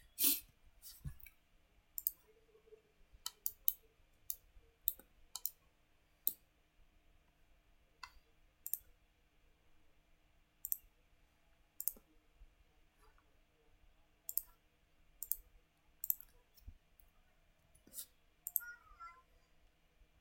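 Computer mouse buttons clicking: single sharp clicks at irregular intervals, roughly one a second, over a faint steady hum.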